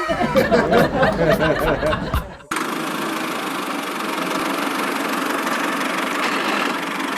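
A couple of seconds of wobbling, warbling effect tones, then a sudden cut to a small motor running steadily with an even hum.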